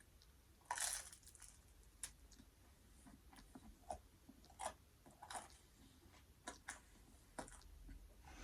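A person eating close to the microphone: a louder bite or crunch about three-quarters of a second in, then soft chewing with scattered small mouth clicks.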